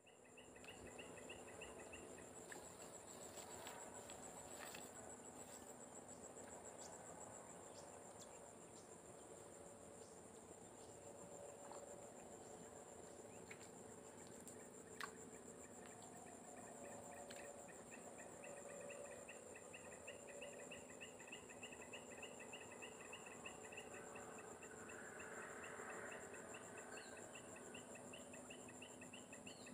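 Faint, steady high-pitched drone of insects, with a rapid pulsing chirp train that fades in and out, and a few faint clicks.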